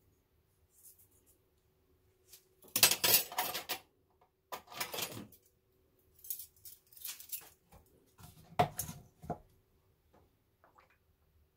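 Kitchen utensils clinking and scraping against a bowl in four short bursts while the tofu mixture is prepared, the loudest burst about three seconds in.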